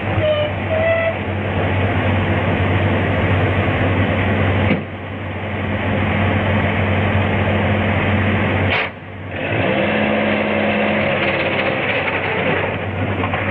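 Vintage sedan's engine running steadily. The sound dips out briefly twice, about a third and two-thirds of the way through.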